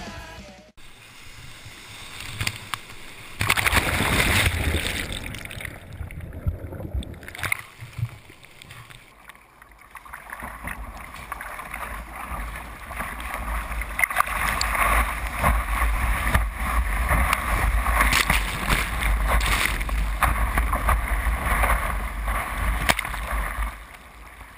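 Breaking surf and churning white water rushing and splashing around a kayak's bow, with wind buffeting the microphone. It surges louder about three and a half seconds in, and again through most of the second half.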